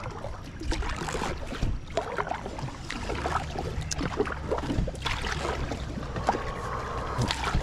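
Handling and water noises aboard an inflatable kayak: irregular clicks and knocks, with a low steady hum that comes up about three seconds in.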